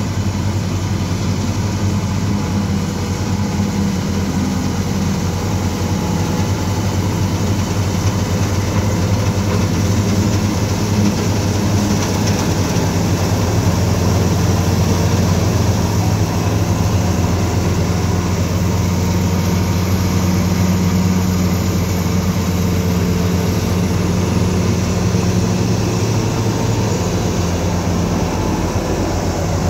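Tractor-mounted combine harvester (Balkar B525 on a New Holland 5620 tractor) running steadily under load while cutting and threshing wheat: a loud, even engine hum with the threshing machinery's whirr. It grows a little louder through the middle as it comes close.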